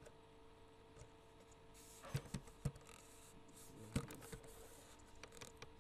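Computer keyboard typing: scattered single keystrokes, then a quicker run of keys near the end.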